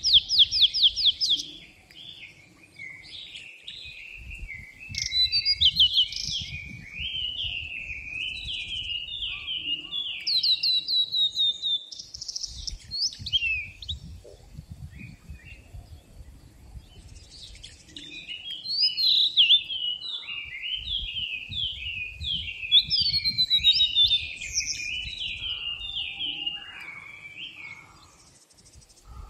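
A songbird singing two long phrases of rapid chirps and down-slurred whistled notes, with a pause of a few seconds between the phrases.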